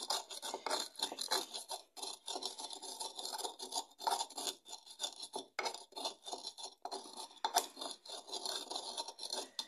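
Pestle grinding dry mole seasoning in a green glazed clay molcajete: quick, gritty scraping strokes against the rough inside of the bowl, with one sharper click about seven and a half seconds in. The seasoning is ground dry, before any water is added, so it grinds fine.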